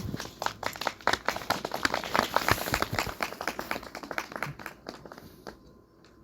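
Audience applauding with dense clapping that thins out and stops about five and a half seconds in.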